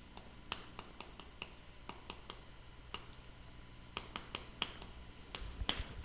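Chalk writing on a chalkboard: a string of light, sharp taps and clicks at irregular spacing, a few a second, as the strokes are made.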